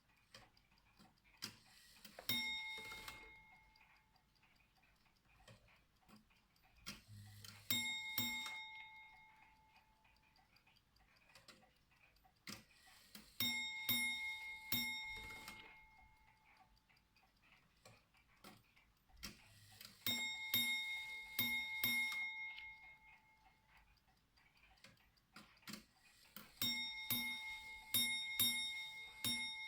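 Ship's bell clock striking its bell in groups about every six seconds. Each group has more strikes than the one before, as the clock counts the half-hour 'glasses' of a watch. Faint ticking sounds between the groups.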